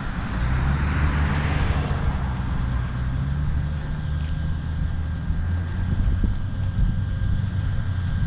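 A motor vehicle on the road alongside, its engine giving a steady low hum with tyre noise, fading out about seven seconds in.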